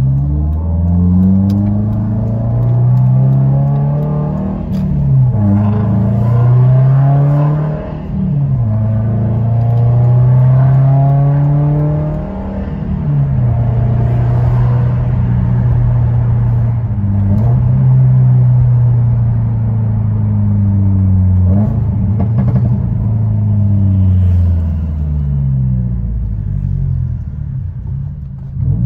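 Subaru WRX STI's turbocharged flat-four with a Tomei titanium catback exhaust, heard from inside the cabin while driving. The engine note climbs in pitch and drops back at each gear change, about six times over.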